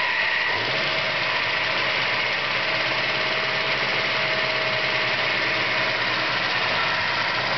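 1968 Ford Mustang California Special's V8 running steadily at idle, freshly started after years of sitting and fed from a temporary fuel supply instead of its gas tank.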